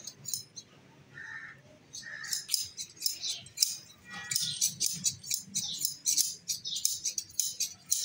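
Large hand scissors snipping through a sheep's fleece during hand shearing: a run of repeated short, crisp snips, several a second, starting about two and a half seconds in.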